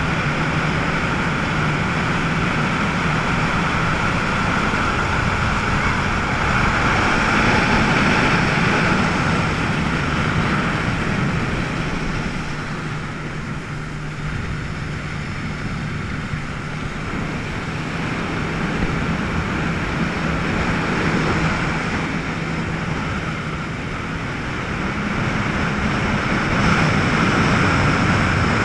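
Yamaha WaveRunner personal watercraft running at speed, its engine humming steadily over rushing water from the hull and wake. The engine eases off a little midway and picks up again near the end.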